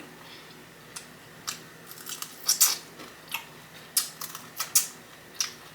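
Close-miked chewing of seasoned chicken wings: a string of wet, crisp mouth clicks and crunches at irregular intervals.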